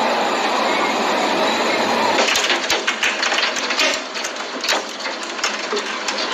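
Hail falling: a steady rushing hiss, then from about two seconds in, a dense irregular clatter of sharp clicks as hailstones strike a hard surface.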